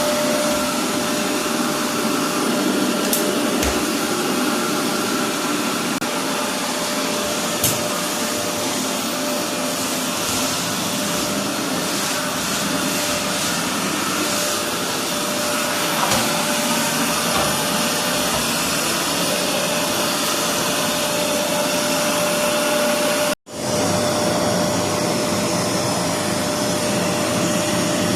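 Bush bagless vacuum cleaner running steadily: a loud even rush of air with a steady whine. The sound cuts out for an instant about 23 seconds in and comes straight back.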